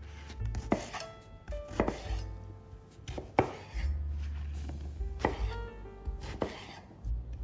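Chef's knife chopping eggplant on a wooden cutting board: a string of sharp, irregular knocks as the blade cuts through and hits the board.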